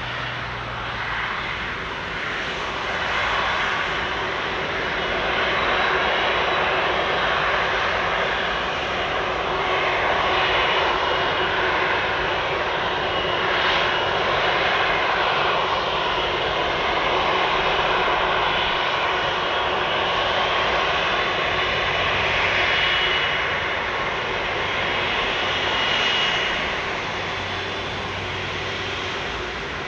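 Airbus A330-300 airliner's twin jet engines running at taxi power as it taxis close by: a steady rushing jet noise with a faint high whine, growing louder over the first few seconds and easing slightly near the end.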